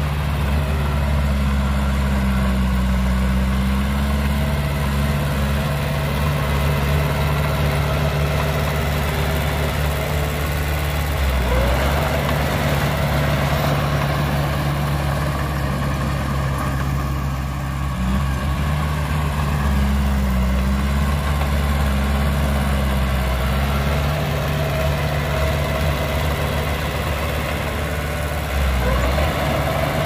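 Heavy earthmoving machine's diesel engine running steadily at low revs, with brief changes in engine pitch about eleven seconds in and again near the end.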